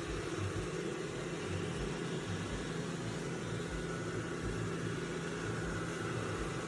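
Dreame robot vacuum-mop running, a steady mechanical hum with uneven low pulses underneath.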